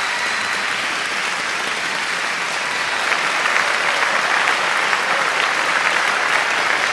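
Crowd applause, a dense patter of many hands clapping that swells and grows more intense about three seconds in.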